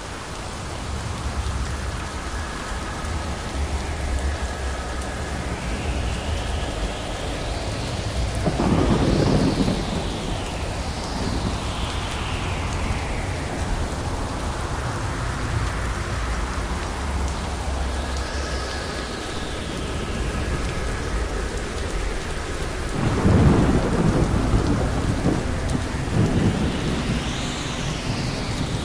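Thunderstorm: steady rain falling over a low rolling rumble of thunder, with two louder thunderclaps, one about a third of the way in and a sharper one near the end.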